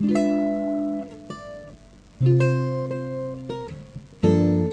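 Background music: an acoustic guitar plucking chords, each ringing and fading before the next, three of them.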